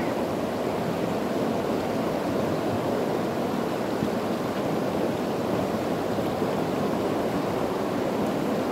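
River water rushing steadily, an even wash of noise with no breaks.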